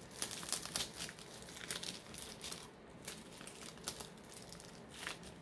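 Plastic packaging crinkling and rustling as it is handled, in irregular crackles.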